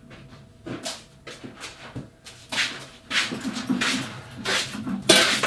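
Irregular footsteps, scuffs and knocks of people walking across the floor, sparse at first and getting louder and busier about halfway through.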